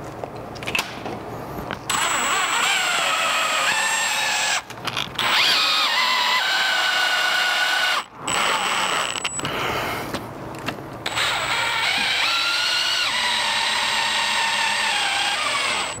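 Makita 18V cordless drill driving 3-inch screws through a strike plate into a door jamb. The motor runs in several long bursts with short pauses between, its whine stepping up and down in pitch as the screws bite.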